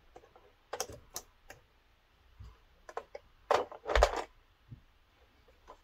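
Sharp plastic clicks and rattles as small action-figure accessories are picked from a clear plastic blister tray, growing busier about three and a half seconds in, with a dull thump near four seconds.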